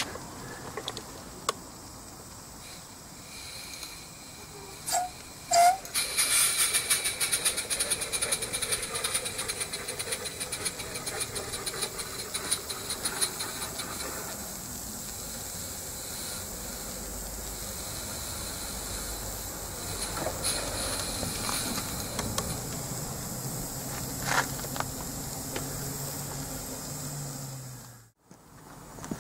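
Live-steam model of the narrow-gauge locomotive Yeo: two short whistle toots about five seconds in, then rapid exhaust beats over a steady hiss of steam as it shunts, settling to a steadier hiss before the sound cuts out near the end.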